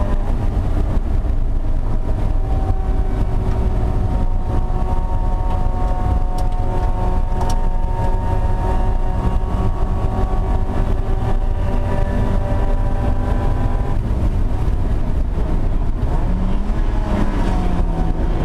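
Mazda MX-5 Miata race car's four-cylinder engine running hard at high revs, heard from inside the cabin with road and wind noise. The engine note holds steady for most of the stretch, then its pitch shifts and wavers a few seconds before the end.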